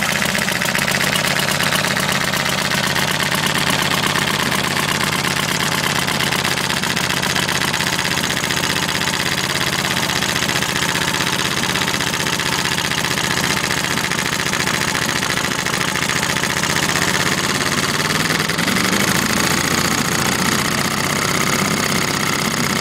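1932 Evinrude Fisherman model 413 two-stroke outboard motor with battery ignition, running steadily on its first start-up after long storage. Its speed rises briefly about 18 to 20 seconds in.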